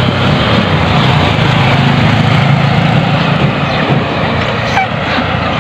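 An engine running steadily at a constant speed, with a low, even hum.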